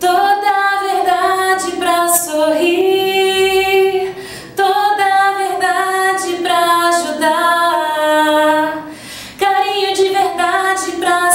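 A woman's solo voice singing a Portuguese song melody, with no instruments heard, breaking off briefly for breath about four and nine seconds in.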